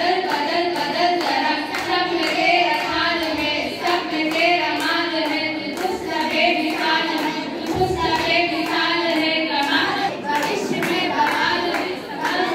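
A group of girls singing together, clapping their hands to a steady beat.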